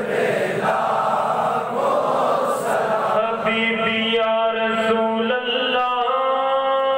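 A crowd of men chanting together in unison. About three seconds in, a single clear melodic line comes to the fore, holding long notes and stepping between them.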